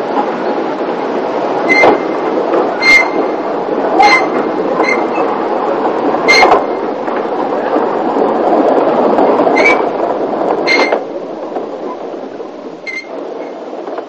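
Narrow-gauge train running along the track: a steady rumble broken by about eight sharp, ringing metallic clicks at uneven intervals as the wheels cross rail joints. The running sound eases off over the last few seconds.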